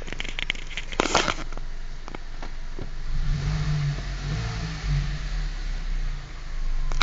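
Hyundai i30 engine idling in neutral with the clutch pedal being let up, bringing in the noise that the owner is chasing: a low hum that swells from about three to six seconds in, with a hiss over it. A cluster of sharp clicks and knocks comes in the first second and a half.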